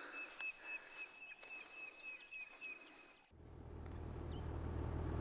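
A run of short high chirps at one pitch, about four a second, from an insect or bird in the dry bush. It cuts off about three seconds in, and a low steady hum takes over and grows slowly louder.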